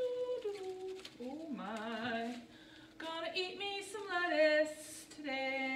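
A woman singing a tune in short phrases, with held notes that slide and waver. A faint steady hum runs underneath.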